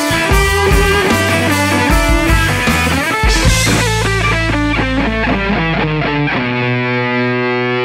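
Electric blues band playing an instrumental stretch, guitar over bass and drums. About six and a half seconds in, the drums and cymbals stop and one chord is held ringing.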